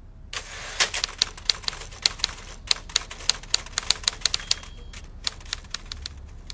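Typewriter keys striking out a line of text: a run of sharp, uneven clacks, a few each second.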